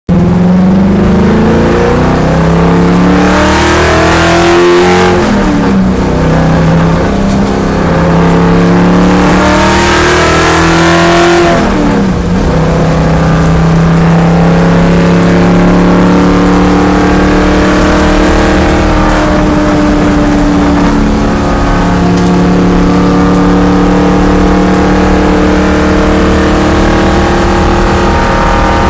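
Corvette engine revved up twice, each time rising in pitch and then dropping back to idle, then running steadily; the engine has a misfire.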